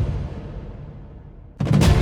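Music track: a deep boom fades away, then about a second and a half in new music cuts in abruptly with a low hit and sharp strikes.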